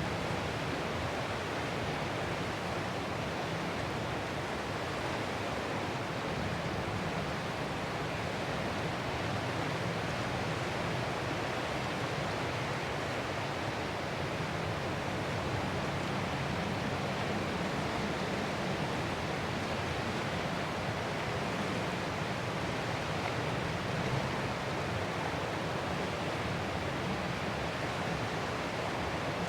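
Ocean surf heard as a steady rushing hiss, with hardly any rise and fall of separate waves.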